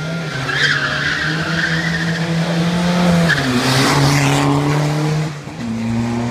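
Rally car launching with its tyres squealing, then accelerating hard past close by. The engine note climbs, drops sharply at two upshifts about three and five and a half seconds in, and climbs again each time; the car is loudest as it passes about four seconds in.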